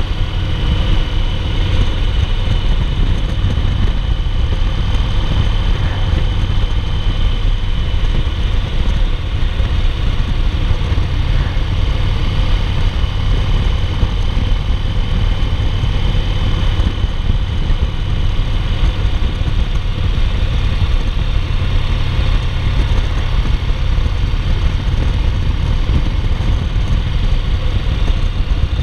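2008 Yamaha Roadliner's air-cooled V-twin engine running steadily at cruising speed, a deep, even rumble under wind and road noise.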